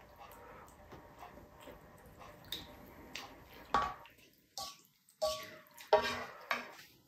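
Plastic ladle knocking and scraping in a pan of beef stew and against a plate as stew and sauce are spooned over rice, with wet, dripping sounds; several sharp clinks come in the second half, the loudest about six seconds in. Before that, only faint small sounds of eating by hand.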